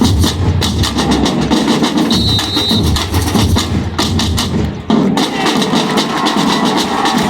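Batucada drum ensemble playing a fast, dense rhythm: deep bass drums under rapid high strokes. The bass drums drop out a little before five seconds in while the rapid high strokes carry on, and a short high tone sounds about two seconds in.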